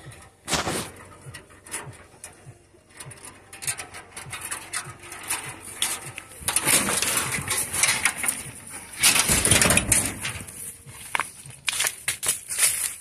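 Garden plants and brush rustling and scraping as hands push through the leaves and around a rusty metal sheet, with scattered knocks and clicks. The rustling is loudest in a long stretch past the middle, with a low rumble of handling noise on the microphone.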